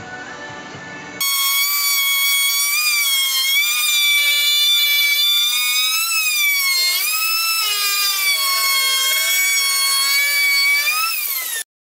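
Handheld wood router running and cutting along a curved wooden edge: a loud, high whine whose pitch dips and wavers as the bit takes the load. It rises in pitch near the end, then cuts off suddenly. Guitar music plays for about the first second.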